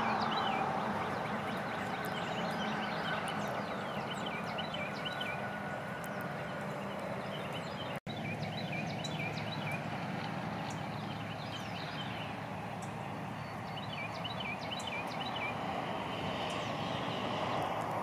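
Several songbirds singing in short, repeated chirps over a steady background hiss. The sound drops out for an instant about eight seconds in.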